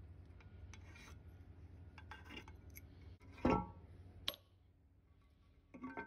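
Metal tools and engine parts being handled: scattered light clinks and rubbing over a steady low hum, with a louder metallic clank about three and a half seconds in and a smaller knock just after.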